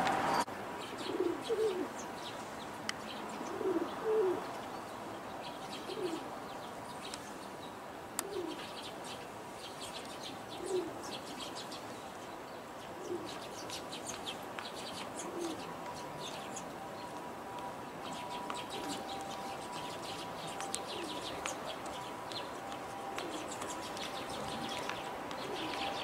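Feral pigeons (rock doves) cooing: a short, low coo repeated about every two seconds, loudest in the first few seconds and then fainter, with faint high chirps behind.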